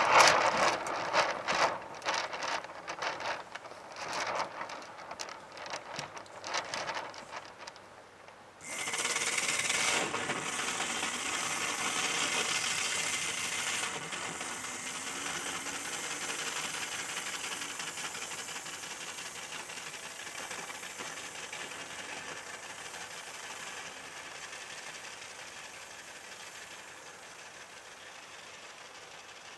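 Irregular rattling and knocking from the sail kart as it is handled, then about eight seconds in the kart's electric drive motor starts with a sudden steady high whine and hiss that fades slowly as the kart moves away.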